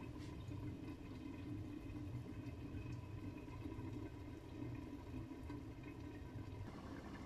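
Faint, steady low simmering of beans cooking in covered pots on an induction hob, with a low tone in the background that cuts off near the end.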